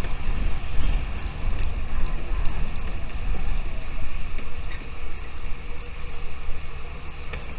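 Low, gusting rumble of wind on the microphone, with a few faint, short bird chirps.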